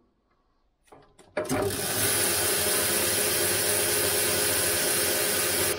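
Boxford metal lathe switched on: a couple of clicks about a second in, then the machine starts and runs steadily and loudly, the chuck spinning.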